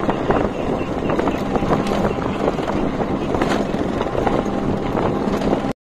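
Wind rushing over the microphone on a moving motorbike, with the motorbike engine running underneath; it cuts off abruptly near the end.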